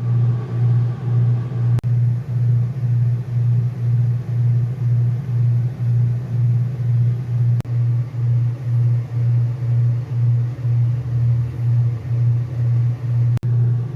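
Lawn mower engine running steadily nearby, a loud low drone around G sharp that swells and fades about twice a second.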